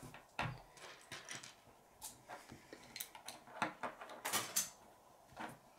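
Plastic K'nex connectors and a rod being handled and pushed together on a wooden tabletop: scattered light clicks and clatters, with a cluster of sharper clicks about three quarters of the way through.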